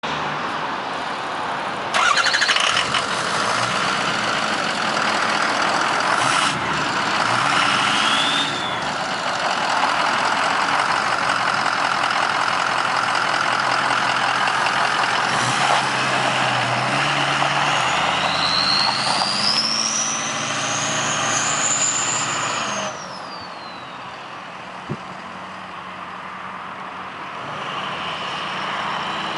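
A 2003 Ford pickup truck's engine starts with a sudden loud burst about two seconds in, then keeps running. A high whine rises and then falls once around the twentieth second, and the engine sound drops away a moment later, leaving a quieter background.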